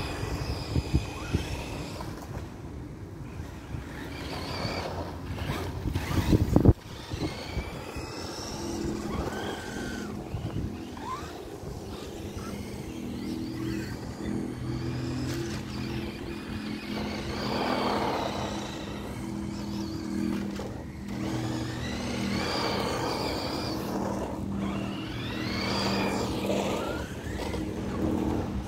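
Toy RC trucks driving on asphalt: a high motor whine rising and falling several times as they speed up and slow down, over tyre and wind noise. A loud brief rumble about six seconds in.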